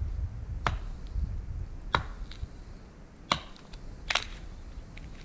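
Dry branches of a dead spruce snapping sharply four times, about a second apart, as the dead tree is pulled down and broken by hand for kettle sticks. A low wind rumble on the microphone runs beneath.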